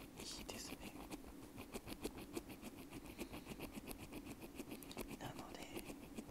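Bamboo ear pick scratching inside a white wired earbud, heard very close: a quick, dry run of short scraping clicks, several a second.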